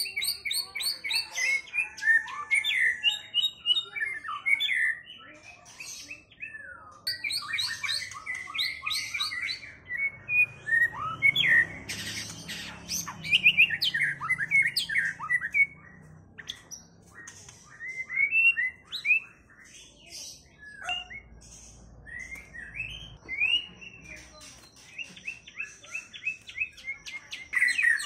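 White-rumped shama (murai batu) singing: a varied song of rapid whistles, trills and chattering notes, in phrases of a few seconds with short pauses between them.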